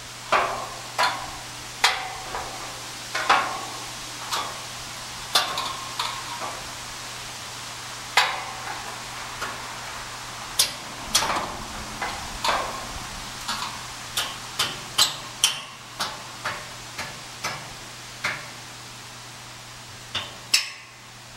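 An irregular series of sharp knocks and clanks, a couple of dozen over the stretch, several with a short ring, over a steady low hum.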